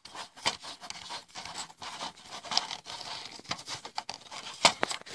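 Handling noise: fingers rubbing and scratching right against the camera, with a run of small clicks and a sharper click near the end.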